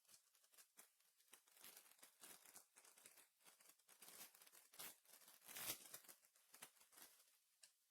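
Faint crinkling and tearing of a trading card pack's wrapper being opened and handled, a quick run of rustles and small clicks, loudest about five and a half seconds in.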